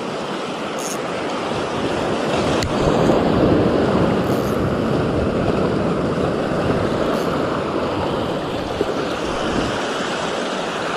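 Shallow surf washing along the beach, a steady rush that swells a little about three seconds in.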